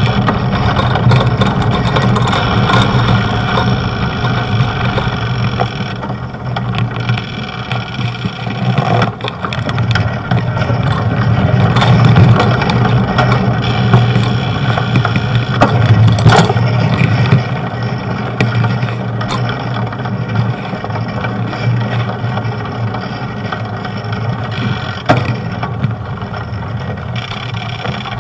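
Steady street-traffic noise heard from a moving bicycle, with cars running alongside and the level swelling and falling as they pass, plus a few short knocks.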